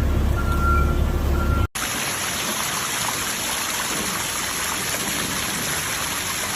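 A truck's reversing beeper repeats over its low engine rumble, then cuts off abruptly about a second and a half in. A steady rush of water follows.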